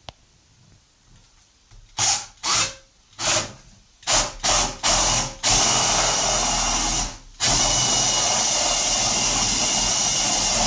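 Cordless drill boring a 25 mm hole through the plastic wall of a wheelie bin. It starts with several short bursts of the trigger about two seconds in, then runs steadily, with one brief stop about seven seconds in.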